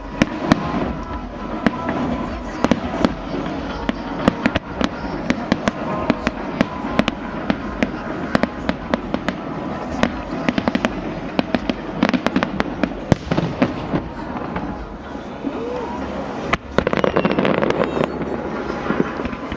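Fireworks display: a constant run of bangs and crackling shell bursts, with a sudden, denser spell of crackling near the end.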